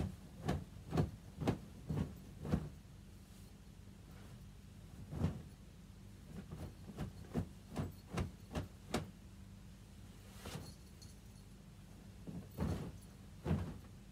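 A series of short dull thumps or knocks. There are about five at roughly two a second at first, then an uneven run of them midway and two more near the end.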